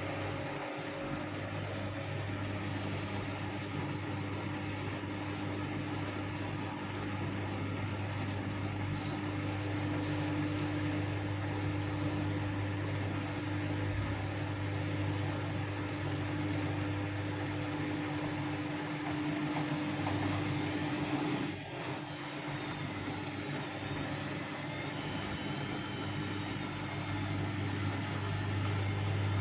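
Vestel CM8710 front-loading washing machine running, its drum motor giving a steady low hum with a faint whine, with a brief dip about two-thirds of the way through.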